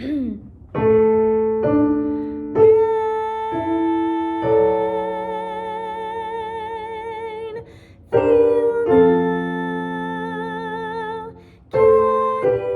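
Keyboard playing a sequence of sustained chords, with a woman singing long held notes with vibrato over them: a soprano choir part sung to accompaniment.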